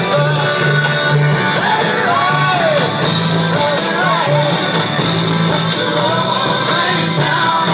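Rock and roll song with singing over a repeating bass line.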